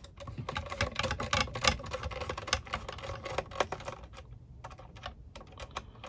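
Hand screwdriver turning a small screw out of a plastic docking-station case: a run of light, irregular clicks and scrapes, dense at first and thinning out after about four seconds.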